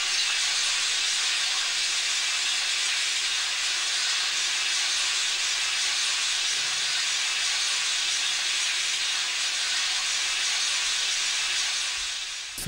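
Steady, even static hiss with no other sound in it, fading out near the end.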